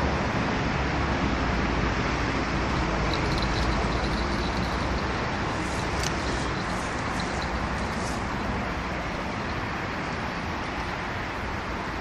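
Steady rumble of distant road traffic, easing slightly in level, with a few faint high ticks in the middle.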